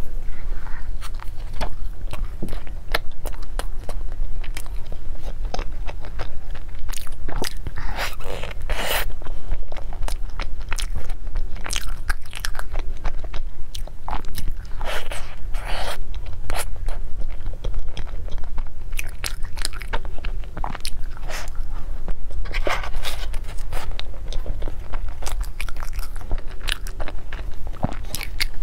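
Close-miked eating of a baked pastry tart: bites that crunch through the crust, then chewing, with many short crackles. A steady low hum runs underneath.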